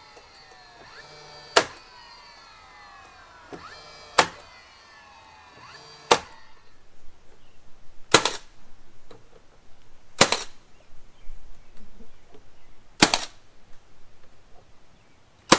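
Cordless 16-gauge finish nailer firing nails into porch trim, seven sharp shots about two to three seconds apart, with handling clatter between the later shots. Faint falling tones sound in the background during the first half.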